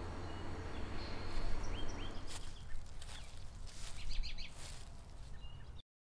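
Outdoor ambience of small birds chirping in short, scattered calls over a steady low background hum. It cuts off abruptly just before the end.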